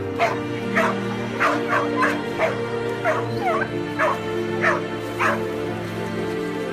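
A dog whimpering and yelping in short high cries, about two a second, as it is pulled out of icy water; the cries stop about five seconds in. Background music plays throughout.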